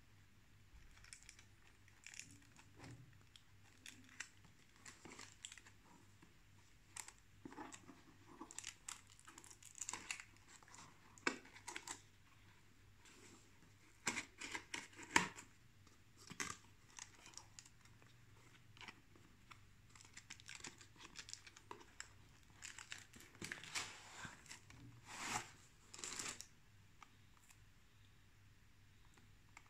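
Cardboard box parts and paper packaging being handled: rustling, scraping and light crinkling in irregular short bursts, with a few sharper taps.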